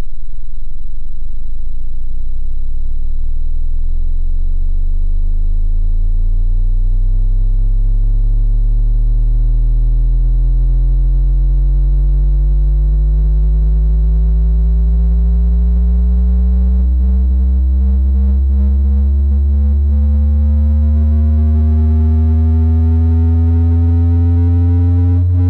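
Dubstep intro: a loud synthesizer bass tone rising slowly and steadily in pitch, one long upward sweep with no drums.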